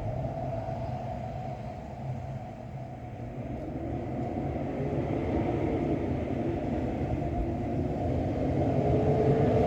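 Wind gusting across the microphone, a low rumble that dips early on and then builds toward the end.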